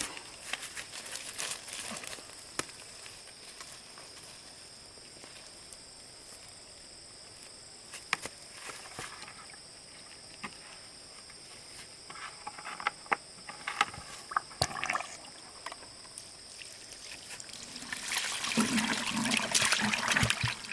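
Water trickling and splashing lightly, with scattered small knocks and a steady high-pitched hum behind it; the water grows louder near the end.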